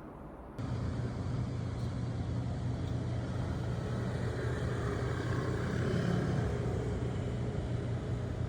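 Steady low vehicle rumble that starts abruptly a little over half a second in, after a faint hiss.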